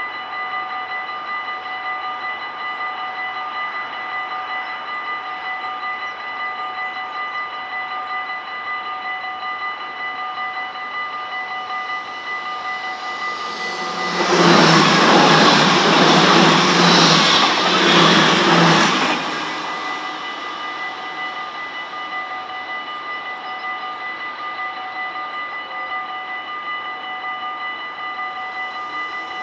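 Dutch level-crossing warning bell ringing steadily. About halfway through, a train passes at speed for around five seconds, louder than the bell and drowning it out, before the bell rings on alone.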